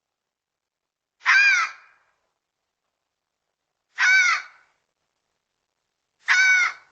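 Red fox calling: three loud, hoarse calls, each about half a second long, coming about two and a half seconds apart.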